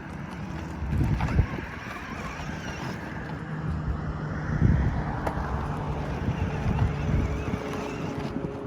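Wind buffeting the microphone in low rumbling gusts, with a few knocks and a steady low hum that starts about three and a half seconds in.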